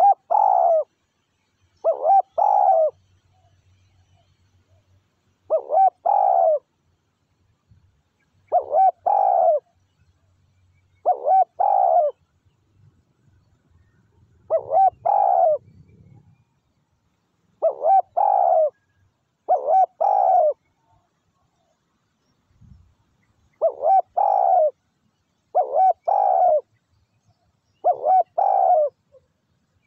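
Spotted dove cooing: a short phrase of two or three coos, repeated about eleven times, every two to three seconds.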